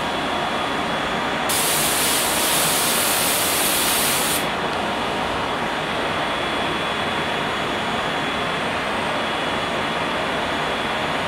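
Multicam 1000 Series CNC router running: its spindle, dust extraction and vacuum hold-down table fan make a steady, loud rushing noise with a faint high whine. A sharper hiss comes in about a second and a half in and lasts about three seconds.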